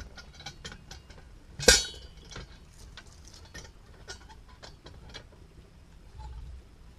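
Steel lever-type fence post puller being worked, its handle and jaw giving light irregular metallic clicks, with one sharp ringing clank about a second and a half in as it grips and levers a post out of the ground.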